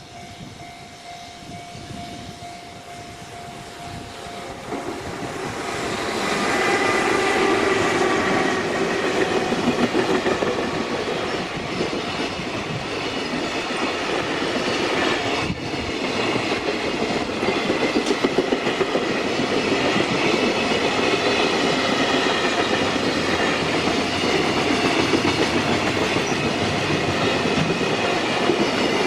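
Freight train hauled by an electric locomotive passing close by. It builds up over the first five or six seconds, then the long run of wagons goes by with a loud, steady rush of wheels on the rails.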